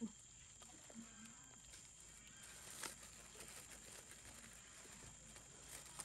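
Near silence: faint rustling of a mesh bag and a plastic bag as live crabs are moved between them, with a soft click about three seconds in.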